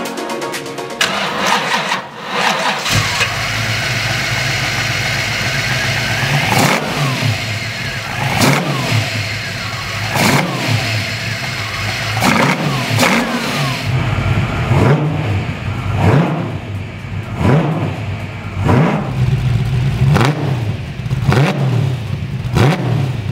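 The 347 stroker V8 with eight-stack downdraft injection in a 1966 Ford Mustang starts about three seconds in and settles to idle. From about six seconds in it is revved in a series of quick throttle blips, each a sharp rise and fall in revs, roughly one every second or two.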